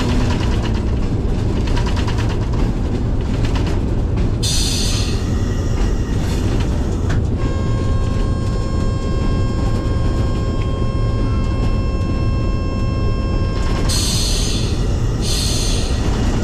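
HBU-20 diesel-electric locomotive running at low speed, heard from the cab, with a steady engine rumble and the clatter of wheels over rail joints. A long steady horn note of about six seconds sounds in the middle, and short hissing bursts come about four seconds in and three times near the end.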